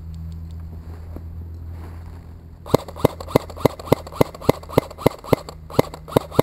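Close airsoft gun firing a rapid string of single shots, about three to four a second, starting nearly three seconds in, each a sharp crack; a steady low hum runs underneath.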